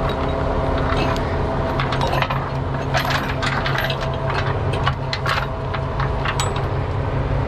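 Steel tow chain links clinking and rattling in quick, irregular clicks as the chain is let out from its pocket on a tow truck's deck, over the steady low hum of the truck's running engine.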